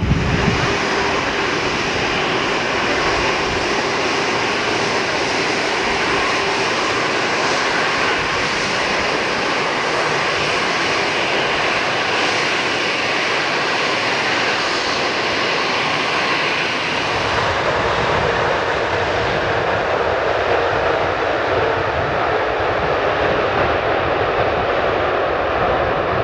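Jet airliner turbofan engines running steadily on the runway, a dense roar with a faint high whine. Its character changes about 17 seconds in as one aircraft gives way to another.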